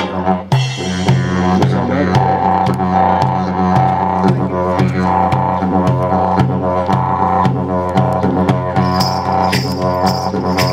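Didgeridoo played in a continuous low drone with a rhythmic pulse about twice a second and shifting overtones above it. The drone breaks briefly just under a second in.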